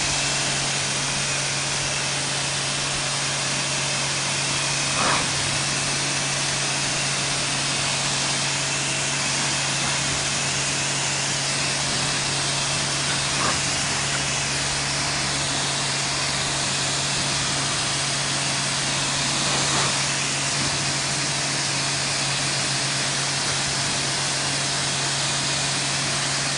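Pressure washer running continuously, its pump motor humming steadily under the hiss of the high-pressure water jet. Three short, slightly louder sounds break in along the way.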